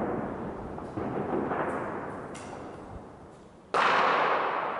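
Gunfire and explosions of street fighting, echoing between buildings: several shots in the first half, then one much louder blast near the end whose echo trails off slowly.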